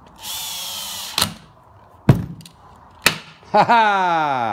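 Makita cordless drill/driver running for about a second as it drives a screw into a hinge, followed by two sharp knocks of the tool and wood on the bench. Near the end comes a loud, drawn-out tone that falls in pitch.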